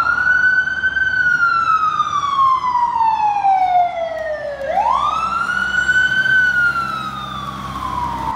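Fire engine siren wailing as the truck approaches. It goes through two cycles, each a quick rise in pitch followed by a slow fall lasting about four seconds. A low engine drone sits under the second cycle.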